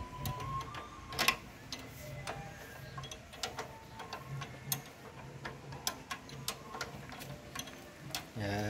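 Irregular metallic clicks and taps of a wrench working on the steel frame of a homemade bandsaw sawmill's carriage, with one louder knock about a second in.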